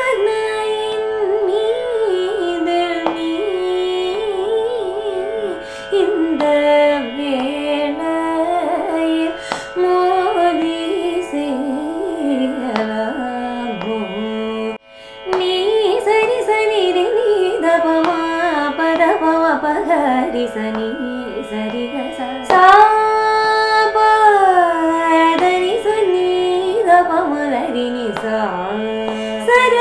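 A woman singing Carnatic classical vocal practice, her voice gliding and ornamenting around the notes over a steady drone. The singing breaks off briefly about halfway through.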